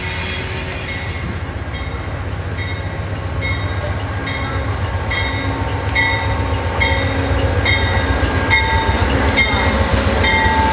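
Two GE Genesis P42DC diesel locomotives passing at close range, their engines running with a deep rumble that grows louder as they come alongside. A locomotive bell rings steadily, a bit more than once a second.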